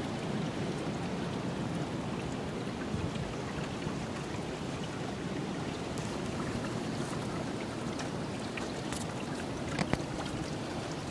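Steady rushing noise, with two sharp clicks about ten seconds in.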